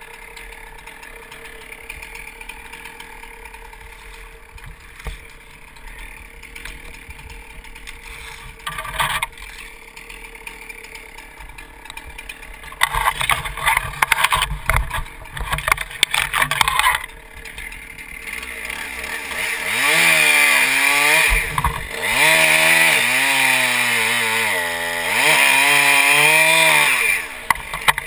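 Chainsaw running at idle at first, then a few seconds of loud, rough, crackling noise in the middle. From about two-thirds in, the saw revs up and down repeatedly as it cuts.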